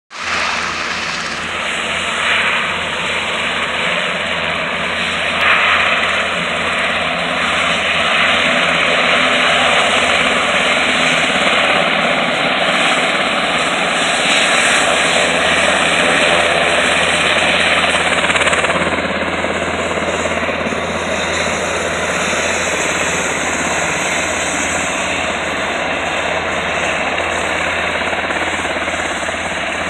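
Sikorsky S-92A helicopter running on the ground with its rotors turning: a loud, steady rush of its twin turboshaft engines and rotor blades.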